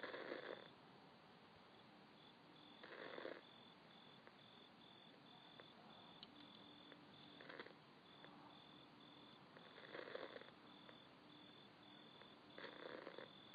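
Near silence, with a faint high chirping that pulses about three times a second, and soft breathy puffs every few seconds.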